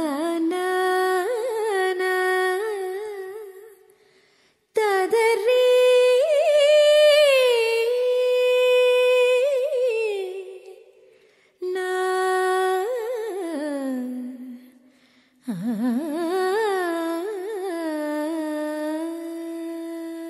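A solo voice humming a slow, ornamented wordless melody in four long phrases, with short breaths between them.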